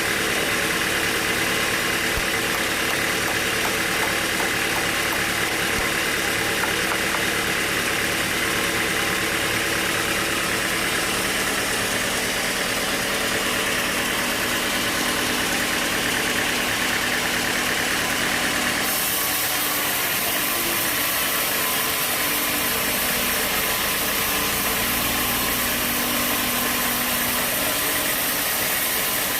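Sawmill machinery running steadily with an engine-like hum and hiss. Its tone shifts about two-thirds of the way through.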